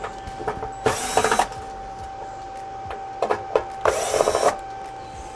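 Electric screwdriver whirring in two short bursts, about half a second each and three seconds apart, backing out the screws that hold LED backlight strips to a TV's sheet-metal chassis.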